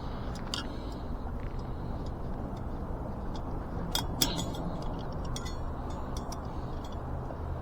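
Scattered light metallic clicks and clinks of bicycle spokes being worked against the wheel hub and brake disc, the sharpest two about four seconds in, over a steady low hum.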